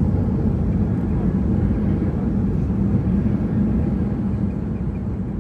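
Steady low rumble inside the cabin of a Boeing 737 rolling along the runway just after landing, from the engines and the ground roll. It eases off near the end.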